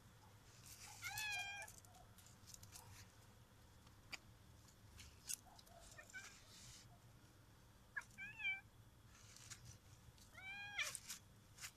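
Annoyed domestic cat giving short, arched yowling meows at a dog close to it: loud calls about a second in, near eight seconds and near the end, with a fainter one around six seconds. A few sharp clicks fall between the calls.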